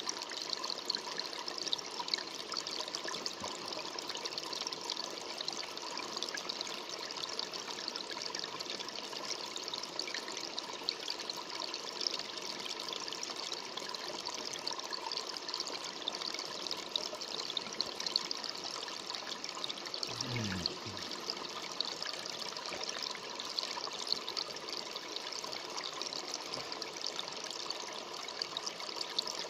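Running water trickling steadily, like a small stream. About two-thirds of the way through, a brief low sound falls in pitch.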